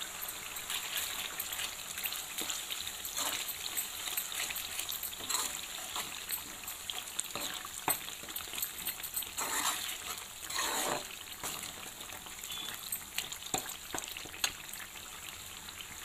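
Ginger paste and turmeric sizzling and crackling in hot oil in a steel pan. A steel spoon stirs through it, with a few louder rasps around ten seconds in.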